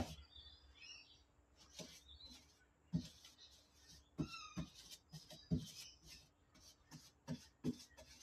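Faint, irregular knocks and taps of a paintbrush working against an open paint tin and a bare steel floor pan while black paint is brushed on. Two brief high chirping animal calls come about half a second in and a little after four seconds.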